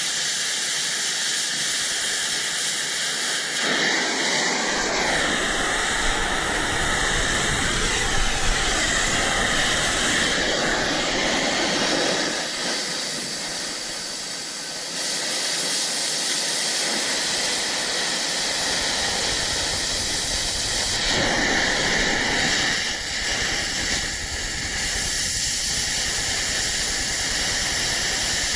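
Cutting torch hissing steadily while cutting steel plate, its level shifting a few times as the cut goes on.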